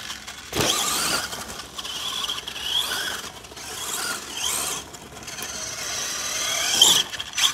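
Electric drivetrain of an RC4WD Carbon Assault 1/10-scale RC monster truck whining, rising and falling in pitch with the throttle over several bursts. There is one thump about half a second in.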